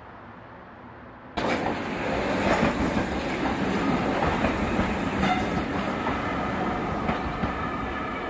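Class 504 third-rail electric multiple unit running past close by: a steady rumble of wheels on rail with scattered knocks. A fainter, distant train sound gives way suddenly to the much louder close pass about a second and a half in.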